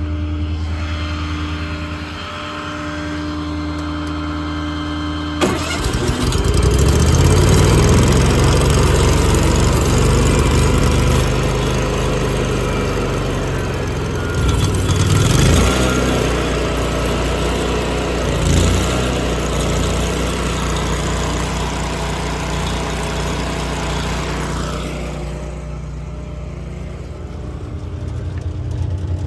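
An engine starts abruptly about five seconds in over a steady idling engine, then runs louder and speeds up and settles several times before easing back near the end.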